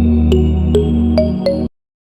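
Electronic background music with sustained low synth notes and short bell-like melody notes, cutting off abruptly near the end into silence.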